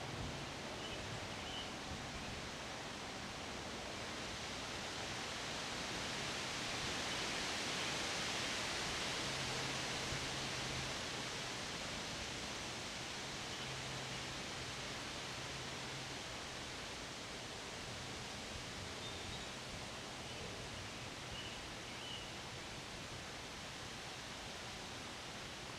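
Wind blowing through leafy trees: a steady rustling hiss that swells into a stronger gust several seconds in, then eases back.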